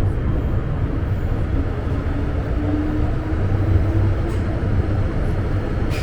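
MTR M-train electric multiple unit running between stations, heard from inside the car: a steady low rumble of wheels and running gear with a faint motor hum that rises slightly in pitch, and a light click near the end.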